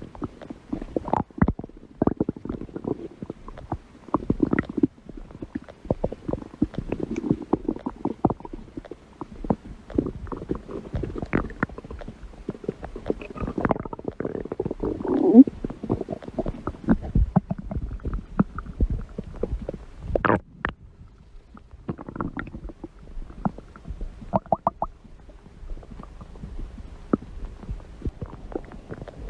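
Stomach growling: an irregular run of gurgles, squelches and short pops, with a longer growl sliding up and down in pitch about fifteen seconds in, and a few sharper pops around twenty seconds.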